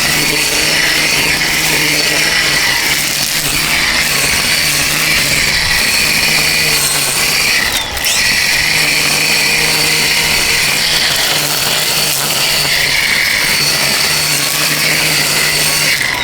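DEWALT DCST922B 20-volt brushless cordless string trimmer running steadily on its low speed setting, its spinning line cutting grass, with a brief dip in level about halfway through.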